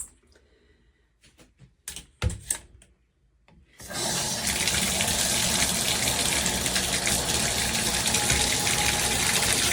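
A few light clicks and knocks of plastic being handled, then, about four seconds in, a handheld filtered shower head starts spraying: a steady rush of water.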